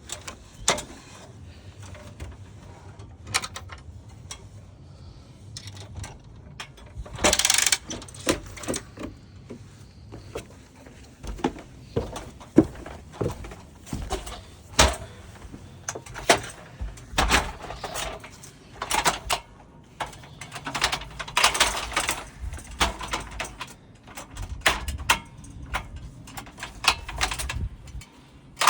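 Irregular knocks, clicks and short rustling scrapes of hands-on handling and movement, with a longer scraping rush about seven seconds in.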